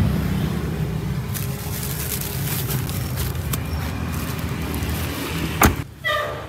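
Steady rumble of car and street noise with small knocks and rustling as a car's rear door is opened and a plastic bag of laundry is lifted out. One sharp thud about five and a half seconds in.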